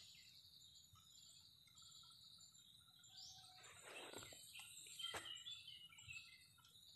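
Near silence: faint background ambience, with a few short faint high chirps and a click in the second half.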